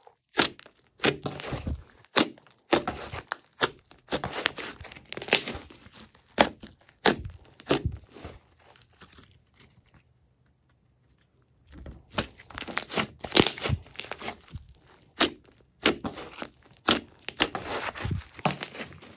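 Slime being squished and stretched, with irregular sticky crackles and popping clicks. The crackling pauses for about two seconds around the middle, then resumes.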